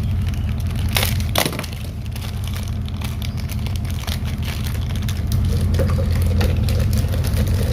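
Handling noise of the fish's plastic shipping bag and container: crinkling and small ticks, with two sharp knocks about a second in, over a steady low hum.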